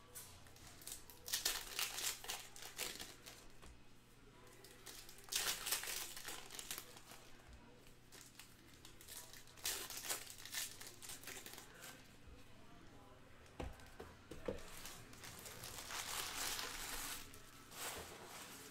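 Plastic wrappers of 2021 Bowman Sapphire baseball card packs being torn open and crinkled by hand, in about four bursts a few seconds apart.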